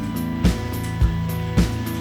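Background music with a steady drum beat, about two beats a second, over sustained guitar-like chords.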